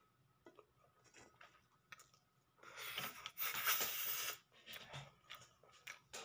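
A woman blowing out hard through pursed lips, a hissing breath in two pushes about three seconds in, against the burn of extra-spicy food. A few faint clicks before and after.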